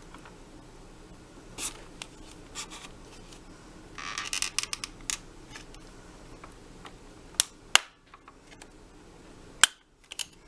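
Small screwdriver scraping and prying at the plastic clips of a vacuum's switch housing, with scattered light clicks and a scratchy spell about four seconds in. Three sharp plastic snaps come in the last three seconds.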